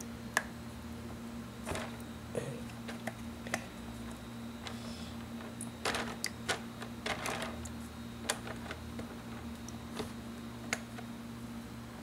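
Scattered light clicks and taps from a wooden stem wrapped in wet crepe paper being handled against a plastic tub, with a few soft wet rustles. A steady low hum runs under it.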